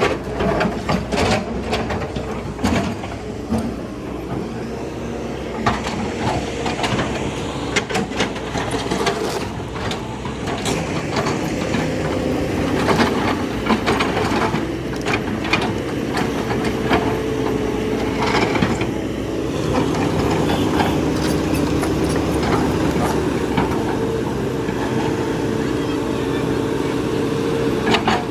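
Hitachi hydraulic excavator's diesel engine running steadily under load, with repeated knocks and crashes of debris as it tears down a building.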